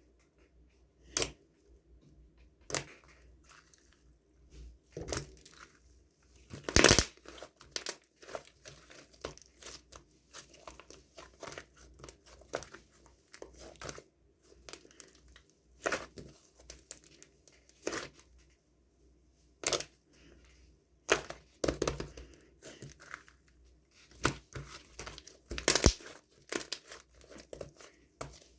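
Crinkly packaging being handled and torn, with irregular rustling and sharp taps and clicks; the loudest clicks come about seven seconds in and near the end.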